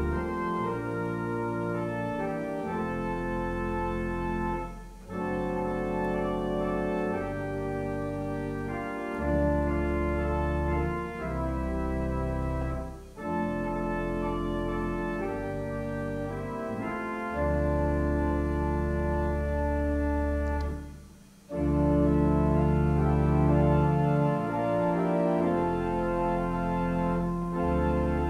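Church organ played from a two-manual console: a slow piece of held chords over a deep pedal bass, with brief breaks between phrases about five, thirteen and twenty-one seconds in.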